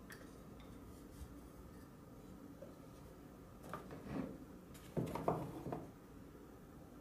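Small knocks and clatter of hand tools and a thin board being put down and moved on a wooden workbench, a few light ones about four seconds in and the loudest cluster around five seconds in.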